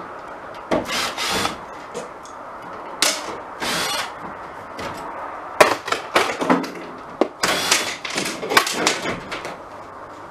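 Ceiling fittings inside a school bus being worked loose by hand: irregular scrapes, rattles and clatter of sheet metal and plastic, with several sharp knocks in the second half.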